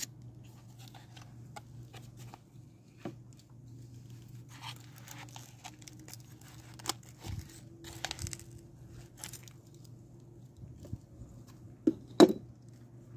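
Intermittent rustling and crackling of succulent cuttings and leaves being handled, with two sharp clicks about twelve seconds in, over a faint steady low hum.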